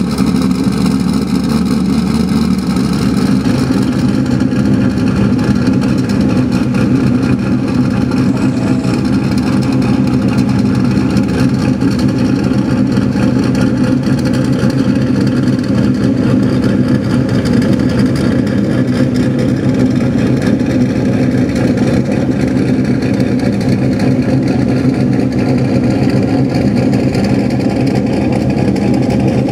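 Car engine idling steadily, its exhaust running evenly with a fast, even pulse.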